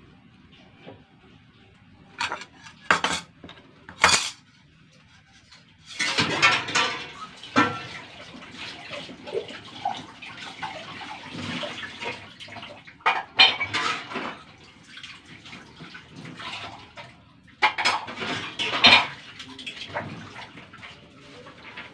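Dishes and cutlery clattering in a kitchen, first a few sharp clinks, then from about six seconds in with water running and repeated clatters.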